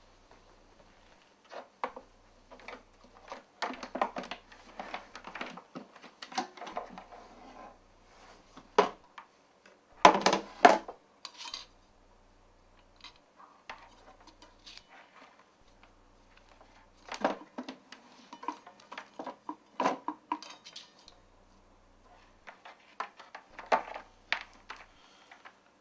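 Clicks, knocks and clatter of a portable record player's case being handled: the case's metal catches unfastened, the lid lifted off and set down, and hands on the turntable's platter. The loudest cluster of knocks comes about ten seconds in.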